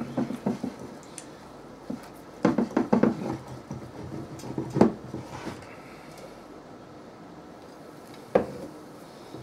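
Wire whisk clinking and scraping against the mixing bowl while stirring flour-and-beer batter, in irregular clusters of clicks, loudest a little over two seconds in and again near five seconds. A single sharp knock comes near the end.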